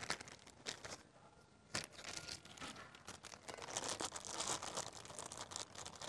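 Thin plastic fish bag crinkling as it is handled, with a brief lull about a second in and a sharp click just before two seconds.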